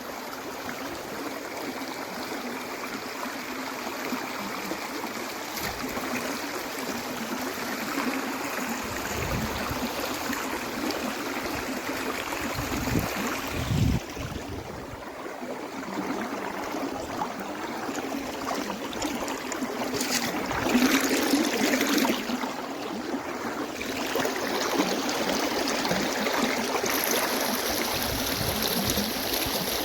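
Steady rain falling, a continuous hiss of water that dips briefly about fourteen seconds in and swells again around twenty seconds.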